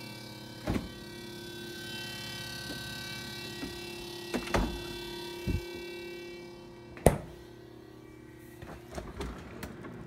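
Refrigerator running with a steady hum and whine made of many tones at once, broken by several knocks. A sharp knock about seven seconds in is the loudest, and after it the higher whine drops away.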